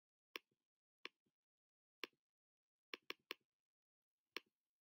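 Seven sharp, separate clicks at uneven spacing, three of them in quick succession midway, each followed by a fainter click a fraction of a second later.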